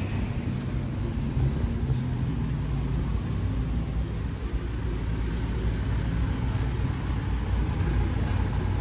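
Street traffic: car engines running nearby, a steady low engine noise with no sharp events.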